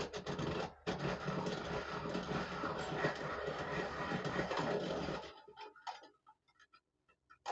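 Electric pencil sharpener running with a steady hum while grinding the end of a carbon-fiber arrow shaft. It breaks off briefly under a second in, then runs for about four more seconds and stops.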